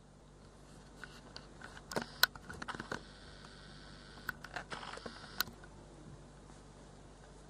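Faint, sparse clicks and ticks from a plush husky robot toy dog's walking mechanism, with a faint whir in the middle.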